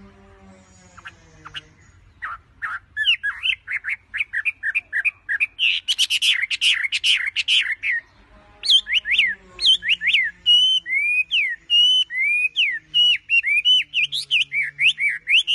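A wambi songbird singing loudly in rapid runs of sharp, sweeping whistled notes. The song starts about two seconds in and pauses briefly near the middle.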